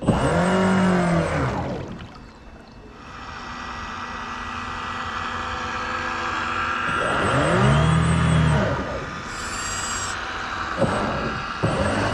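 Radio-controlled model boat's motor, heard close up, revving up and back down twice, about 7 seconds apart, with a steady whine between. Two sharp knocks come near the end.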